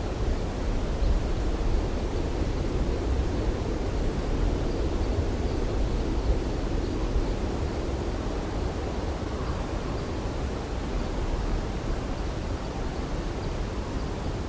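Light wind blowing steadily: an even rushing hiss, heaviest in the low end, with no gusts or other events.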